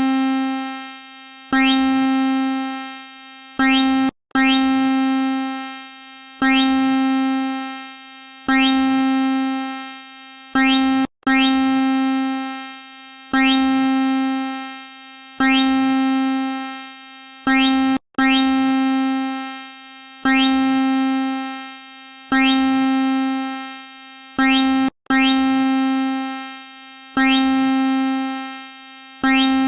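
Electronic emergency alert alarm: one synthesized, chime-like note struck over and over about every two seconds, each note fading after its strike. The pattern breaks briefly about every seven seconds and then starts again.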